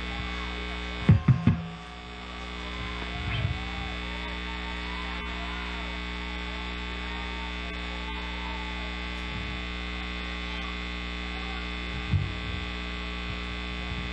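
Steady electrical hum from live-band amplifiers and PA with no music playing. A few low thumps break in, loudest about a second in and again near the end. Faint crowd voices sit underneath.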